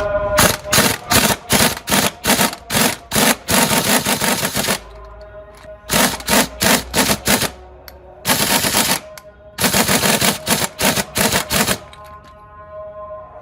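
Pneumatic impact wrench working on the rear shock absorber fasteners in short rattling bursts, about two to three a second, in four runs with brief pauses; it stops near the end.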